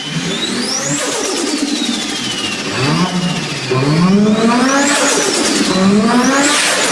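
Japanese performance car engine revved hard about four times, its pitch climbing quickly and then falling back after each rev, with a high whine rising and falling along with it.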